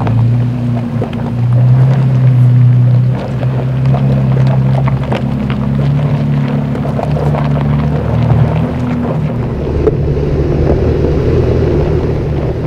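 2020 Toyota 4Runner TRD Pro's 4.0-litre V6 pulling under load at low speed up a dirt and gravel climb, its note rising and falling with the throttle. The tyres crunch and crackle over loose gravel and stones throughout, with a hissier scrabble of tyres in the dirt near the end.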